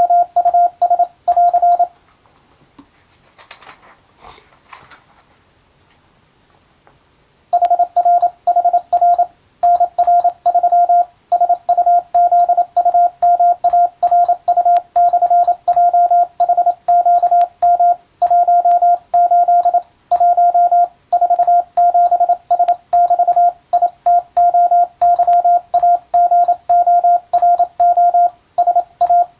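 Morse code (CW) sent as a single steady beep tone, keyed rapidly into short dots and longer dashes, here spelling English practice text. The sending stops about two seconds in and resumes after a pause of about five seconds.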